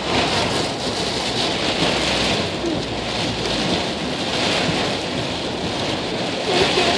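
Heavy wind-driven rain beating on a stopped car, heard from inside the cabin: a steady loud rush that swells and eases every couple of seconds.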